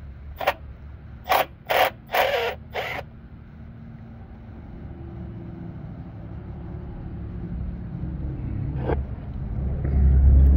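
A few sharp metal clicks and scrapes in the first three seconds as a water pump bolt is worked out with a wrench and handled. Then a low rumble grows steadily louder toward the end.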